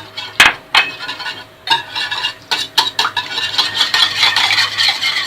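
An egg knocked sharply against the rim of a bowl, a few knocks in the first two seconds, then the egg being beaten into milk with rapid clinking and scraping of the utensil against the bowl.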